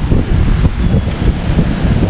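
Strong wind buffeting the microphone: a loud, gusting low rumble.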